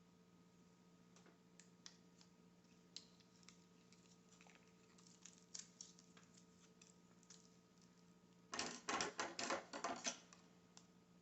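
Faint scattered clicks from hands working with double-sided tape. Near the end there is a quick run of louder crackling clicks lasting about a second and a half, over a faint steady hum.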